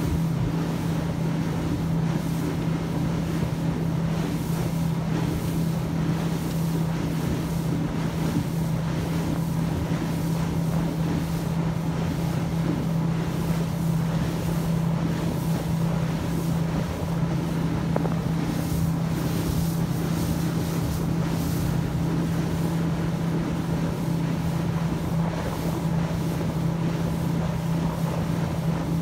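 Small motorboat underway at a steady speed: its motor runs with a constant low drone, over the rush of wind and water past the hull.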